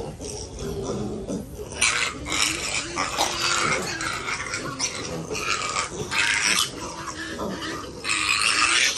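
A group of piglets grunting and squealing. Low grunts run throughout, and harsh, high squeals come in several bursts from about two seconds in, loudest near the end.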